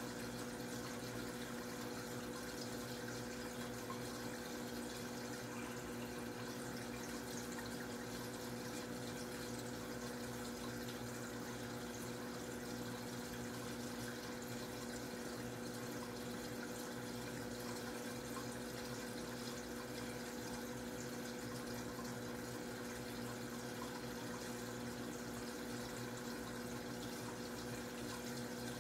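Aquarium filter running: a steady trickle of moving water with a constant low hum.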